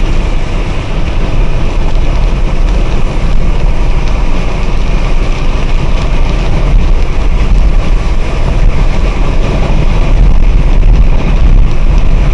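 Strong wind rushing and buffeting the microphone in a severe thunderstorm: a loud, steady low rumble that grows a little stronger near the end.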